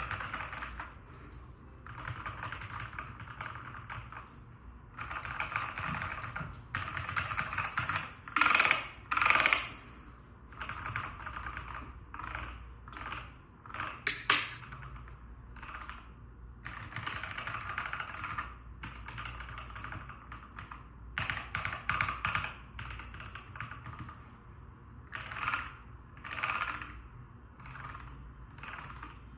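Typing on a Nuphy Air 75 V2 low-profile mechanical keyboard with lubed Wisteria switches. The keystrokes come in bursts of rapid clicks with short pauses between them, and a couple of louder flurries come about a third of the way in.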